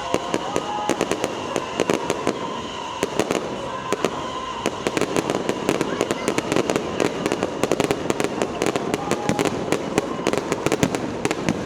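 Firecrackers going off in a rapid, irregular crackle of sharp cracks. The cracks come thicker and faster from about halfway in.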